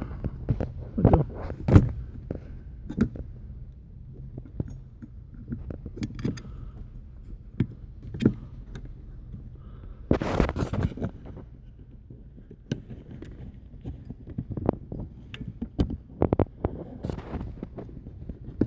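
Scattered small metallic clicks, taps and scrapes of a throttle cable end being worked onto the accelerator pedal arm under the dash of a 1990 Ford F-150, with a longer, louder scraping rustle about ten seconds in.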